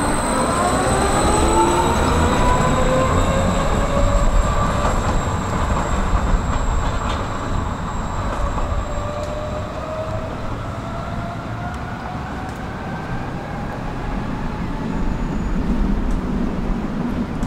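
Electric tram running on its rails with a steady low rumble. A whine rises in pitch over the first few seconds, and a fainter whine returns about halfway through.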